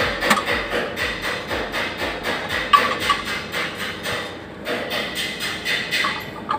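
Hammer tapping steadily on metal, about four or five strikes a second, with a short pause about four seconds in.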